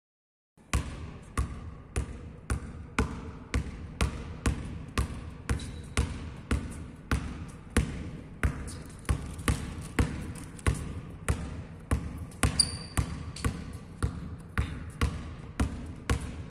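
Basketball dribbled with one hand on a sports hall floor, bouncing at a steady pace of a little under two bounces a second, starting about half a second in. A brief high squeak comes about three quarters of the way through.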